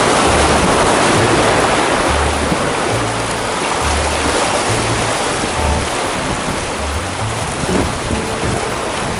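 Sea waves washing and surging against the concrete breakwater blocks, a steady loud rush of water. Background music with a repeating low bass line plays over it.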